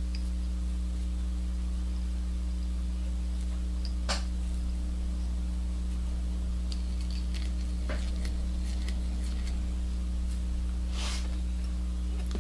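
Steady electrical mains hum, with a few faint clicks from hands handling thread and materials at the tying vise.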